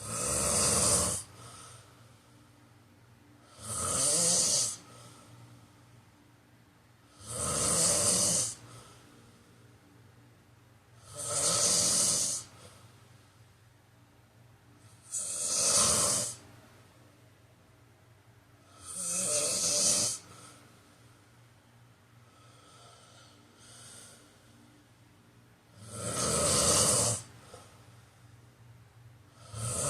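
A person snoring in deep sleep: one loud, rasping snore about every four seconds, each lasting about a second. About three-quarters of the way through, one breath comes out much fainter before the loud snores resume.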